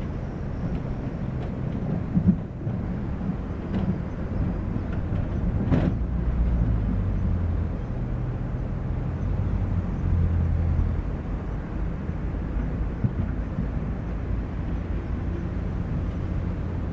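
Diesel engine of heavy construction machinery running steadily, rising in load twice, with a few sharp knocks about two, four and six seconds in.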